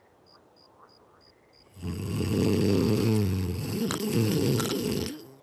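Cartoon snore: one long snore lasting about three seconds, starting about two seconds in. Before it, an alarm clock ticks quickly and evenly, about three ticks a second.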